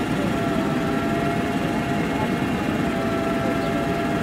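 MAN Lion's Classic city bus idling, heard close to its rear engine grille: a steady low engine rumble with an even whine from its Voith automatic transmission.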